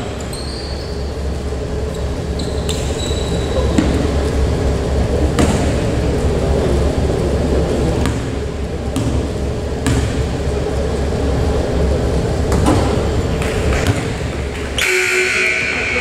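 Basketball game sounds in a gym: a ball bouncing on the hardwood court now and then, with a few short high squeaks and scattered voices over a steady hall hum. A brief high-pitched sound comes near the end.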